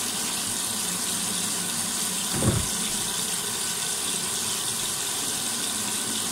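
Tap water running steadily into a stainless-steel kitchen sink, with one dull knock about two and a half seconds in.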